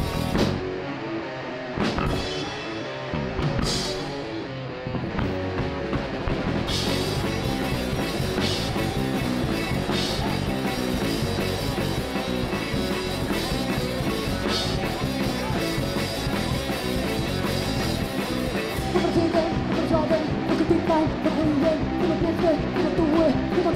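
Rock band playing an instrumental passage on electric guitars and a drum kit, with separate cymbal crashes over a thinner sound for the first few seconds. The full band comes in from about seven seconds, and a wavering melodic line rises louder over it from about nineteen seconds in.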